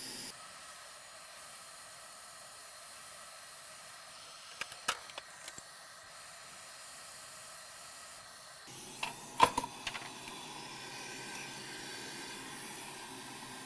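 Steady hiss of air, fitting a hot air rework station desoldering a blown surface-mount fuse from a graphics card board. The hiss grows louder and fuller about nine seconds in, and there are a few light clicks around five seconds and nine seconds in.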